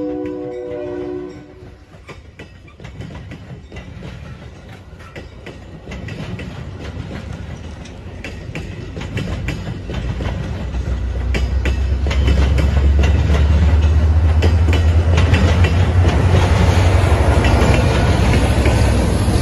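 Metra bilevel commuter train passing close by. A train horn chord fades out about a second and a half in, then the wheels click over the rail joints, louder and louder. From about ten seconds in, the low rumble of the diesel locomotive pushing at the rear of the train builds to the loudest sound as it draws level.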